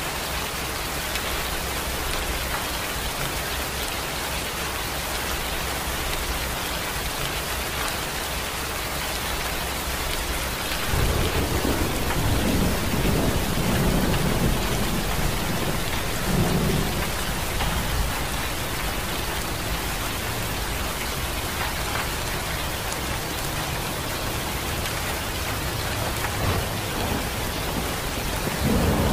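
Steady rain falling, with a long low rumble of thunder that starts about a third of the way in, swells and fades away over several seconds.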